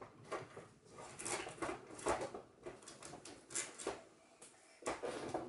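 Scattered light clicks and taps at an irregular pace, with quiet gaps between them.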